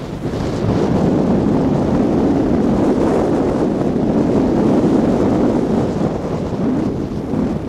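Wind rushing over the microphone of a camera carried while skiing downhill: a steady, loud, low rush with no clear tones.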